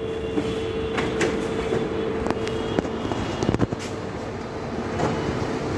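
Toshiba e-STUDIO 2110AC colour copier printing a copy: its motors and paper-feed rollers run with a steady hum and irregular clicks as the sheet is fed through.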